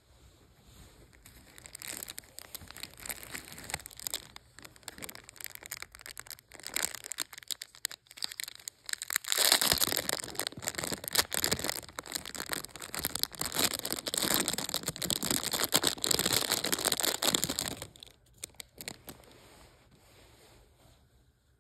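Clear plastic wrap crinkling and crackling as hands unwrap a stone from it: an irregular run of crinkles that gets louder about halfway through and stops a few seconds before the end.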